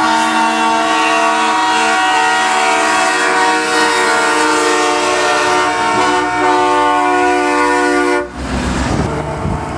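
Semi-truck air horns held long, several sounding together as a steady chord, cutting off abruptly about eight seconds in; then a noisy rush of wind on the microphone.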